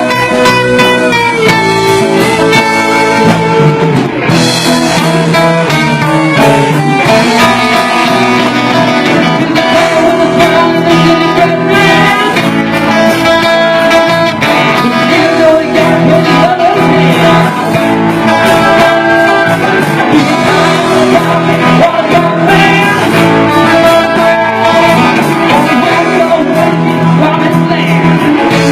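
Live band playing a song, loud and steady, with guitar to the fore.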